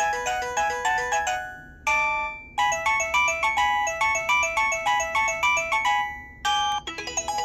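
Preloaded polyphonic ringtones playing from an LG VX5450 cell phone's speaker: quick synthesized melodies of short notes, broken twice by brief pauses, with a different tune beginning near the end.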